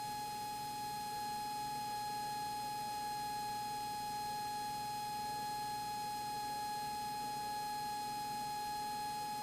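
A steady electrical hum with a row of fainter overtones, over faint background noise, carried in a light aircraft's cockpit intercom audio.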